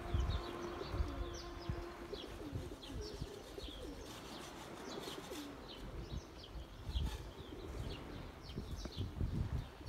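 Birds at the seashore: pigeons cooing and small birds giving many short, high chirps again and again. Low gusts of wind rumble on the microphone near the start and near the end.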